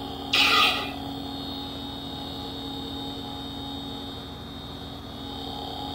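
A lightsaber's RGB v4 sound board in a custom hilt, playing through its small speaker: a short loud burst of effect sound about half a second in, then the saber's steady electronic idle hum.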